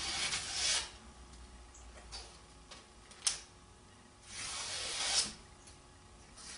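A freshly sharpened flat-grind pocket knife slicing through a sheet of hand-held paper as a sharpness test: a hissing cut that ends under a second in and a second one from about four to five seconds in. A brief sharp click comes a little past three seconds in.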